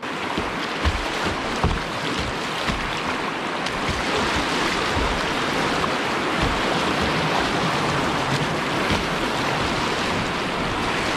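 Whitewater of a river rapid rushing steadily.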